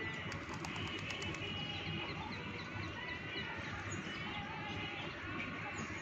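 A chorus of many small birds chirping over a feeding flock of pigeons. A quick run of sharp wing flaps comes in the first second or so.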